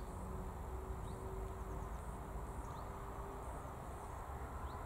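Rural outdoor ambience: a steady high insect hum, such as crickets in the grass, with a few short rising chirps and a low rumble underneath.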